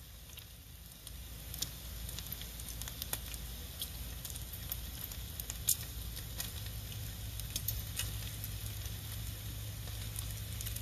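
Bacon frying on a Lodge cast iron griddle: a steady sizzle with frequent sharp pops and crackles of spattering fat, over a low steady rumble.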